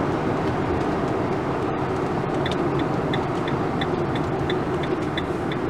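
Steady road and engine noise heard from inside a moving vehicle's cabin. From a little over two seconds in, the turn-signal indicator ticks evenly, about three ticks a second, as the vehicle turns off.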